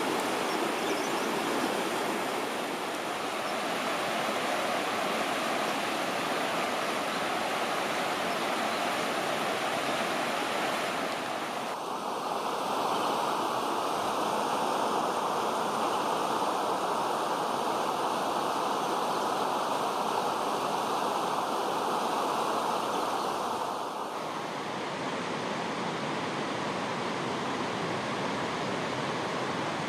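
Steady rushing of running water. Its tone shifts abruptly about twelve seconds in and again about twenty-four seconds in.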